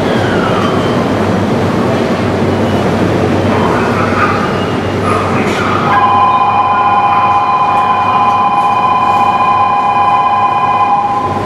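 Tokyu 1000 series electric train pulling slowly into a station: running and rail noise, with a short falling whine near the start. About halfway through a steady high two-note ringing tone sets in and stops just before the end.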